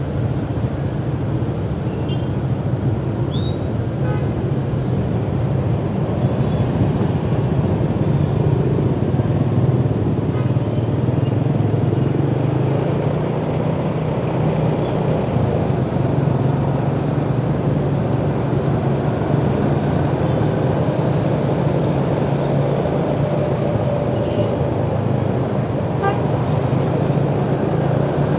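Motorcycle engine running steadily while riding in city traffic, with a few short horn toots from the road around.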